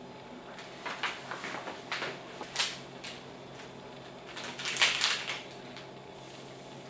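Paper and plastic packaging rustling and crinkling: a flour bag crackling in short bursts as the last flour is poured into the bread pan and the bag is put aside, then a louder, denser crinkling about five seconds in as a small yeast sachet is handled.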